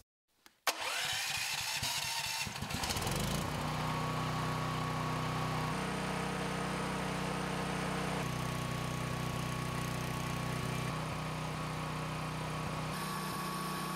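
Ryobi 420cc single-cylinder generator engine running steadily during its warm-up, freshly filled with Pennzoil Ultra Platinum oil. It comes in abruptly about a second in.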